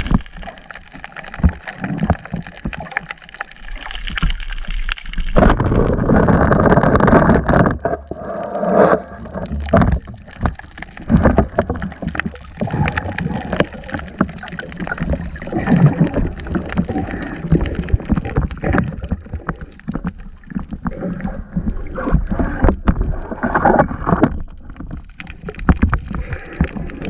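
Muffled water noise picked up by a camera underwater, with many sharp knocks and clicks from the diver's movements and gear. It is loudest for about three seconds starting some five seconds in.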